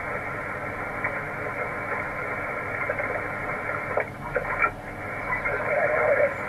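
HF transceiver's receiver audio in SSB mode as the tuning knob is turned: a steady hiss of band noise, with a few crackles about four seconds in and a short burst of garbled, off-tune signal near the end.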